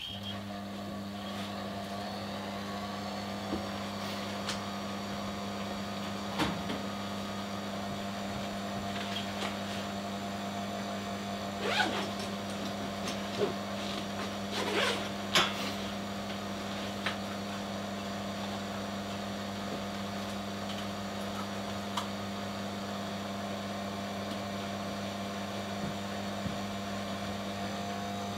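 Small electric motor running with a steady hum, switched on just as it begins, with a few light clicks and taps midway.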